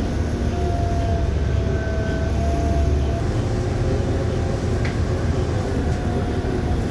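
New Flyer XDE60 diesel-electric hybrid articulated bus under way, heard from inside: a steady low rumble of its Cummins ISL9 diesel and road noise, with a thin whine that fades in and out, and a single click about five seconds in.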